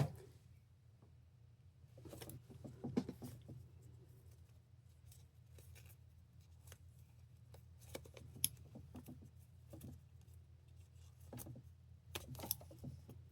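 Faint rustling and small clicks of a small plush blind-box figure with a key ring, and its packaging, being handled, with one sharp click at the start.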